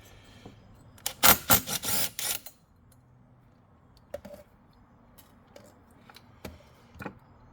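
Small metal parts clinking and rattling together in a quick cluster of sharp clicks about a second in, then a few faint ticks.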